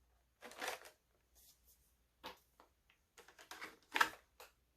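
Action figure box packaging being opened and handled: a few short bursts of rustling and scraping with small clicks, busiest and loudest from about three seconds in.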